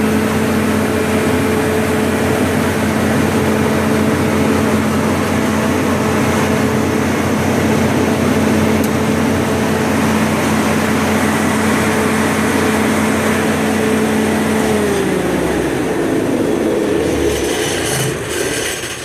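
Onan 30EK natural-gas generator set running steadily, then shut off about 15 seconds in, its engine note falling as it spins down to a stop. The engine is warmed up from running.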